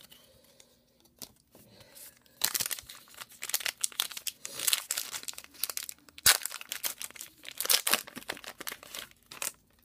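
Wrapper of a baseball card pack being torn open and crinkled by hand, starting about two and a half seconds in, with a sharp snap about six seconds in.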